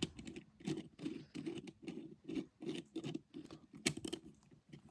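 3D-printed plastic puzzle pieces being handled and fitted together: a quick run of light clicks and scrapes, about two or three a second.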